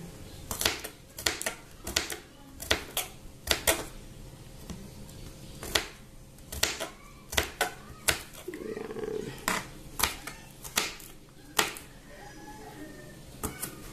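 Kitchen knife chopping garlic cloves on a cutting board: irregular sharp knocks of the blade striking the board, about one to two a second.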